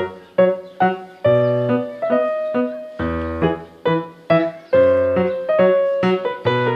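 Background piano music: notes and chords struck about one or two a second, each fading away, over low bass notes.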